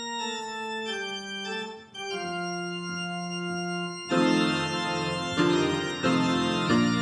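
Organ music: slow held chords that change about once a second, then a louder, fuller passage with quicker chord changes from about four seconds in.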